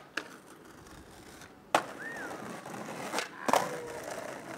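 Skateboard in use: a few sharp clacks of the board hitting the ground, the loudest just under two seconds in and two more close together near the three-and-a-half-second mark, with the wheels rolling on rough asphalt between them.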